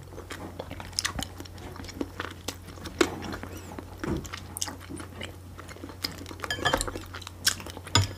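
Close-miked chewing and mouth sounds of a person eating, with many short wet clicks scattered throughout.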